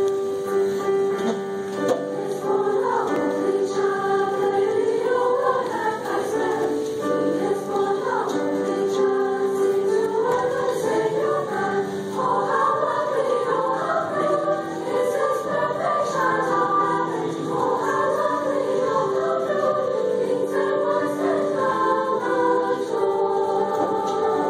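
High school women's choir singing a French carol arrangement in several voice parts.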